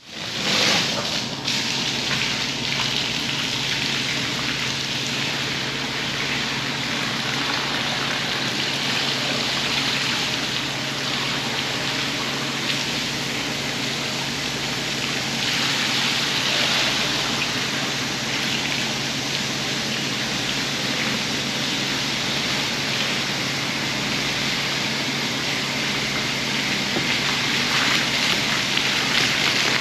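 Water spraying steadily onto a rug during washing, with a constant low machine hum underneath.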